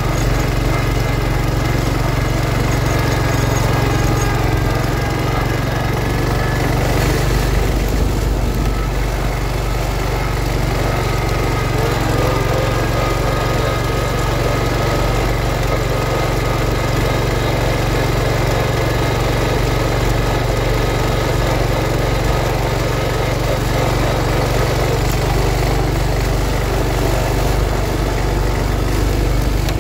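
1971 John Deere 140 H3 garden tractor engine running steadily, first pulling a sleeve-hitch moldboard plow through the soil, then carrying on with the plow lifted out of the ground.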